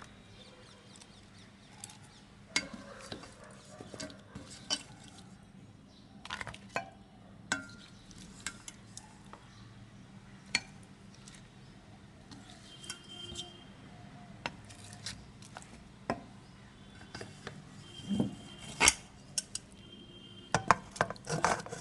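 Spoon and metal bowl clinking and scraping against a pressure cooker pot as wet chunks of marinated mutton are transferred into it: scattered clinks and scrapes, a few ringing briefly, busier and louder in the last few seconds.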